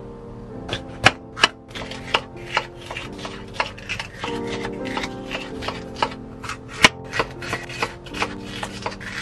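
Knife chopping on a cutting board in irregular strokes, about one or two a second, over soft background music.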